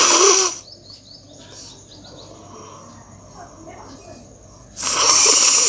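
A person blowing their nose hard, twice: a short blast at the very start and a longer one starting near the end.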